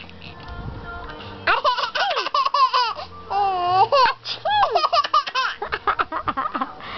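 A baby laughing at a sneeze: a string of short, high-pitched giggles and squeals starting about a second and a half in, with one longer wavering squeal midway.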